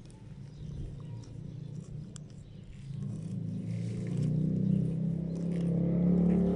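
Soft rustling and faint clicks of fresh St John's wort sprigs being handled and pressed into a glass jar, over a steady low hum that grows louder about halfway through.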